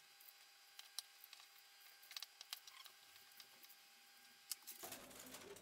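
Near silence with faint, scattered clicks and taps: a knife cutting into a warm, freshly baked chocolate muesli-bar slab. A faint steady hiss of room noise comes in near the end.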